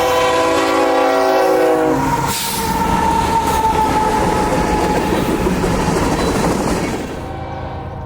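Locomotive air horn sounding a chord of several notes, cutting off about two seconds in. The loud rumble of a passing freight train follows, with one steady high-pitched tone over it. The sound drops off abruptly about seven seconds in.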